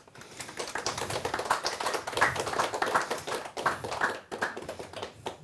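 Small audience applauding: a dense patter of many individual hand claps that starts just after the start and thins out near the end.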